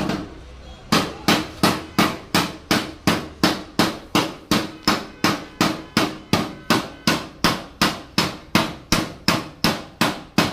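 Hammer beating on metal, steady even blows about three a second, each with a short ring. There is a brief pause just after the start.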